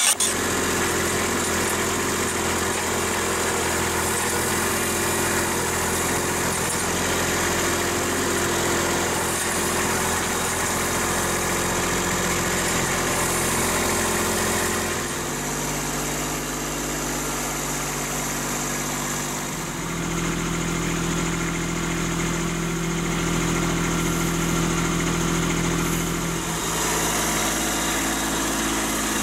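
Kubota compact tractor's diesel engine running steadily, its note shifting a few times: near the middle, about two-thirds through, and again near the end.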